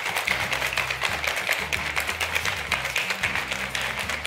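BlenderBottle shaker cup being shaken hard to mix a powdered drink, its whisk ball rattling against the plastic in quick, irregular clicks, over background music with a steady bass line.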